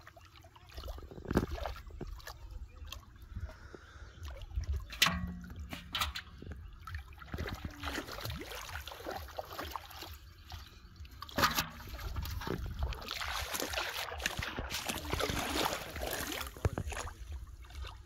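Shallow water splashing and sloshing as a child wades through it by hand-fishing, with a few sharp splashes and a denser run of splashing near the end.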